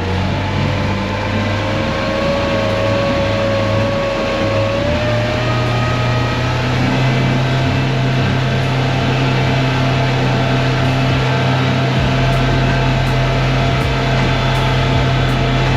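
Mercury outboard motor running with a steady hum and whine, rising a little in pitch about five seconds in. This is the run that the boaters single out as the moment their motor failed.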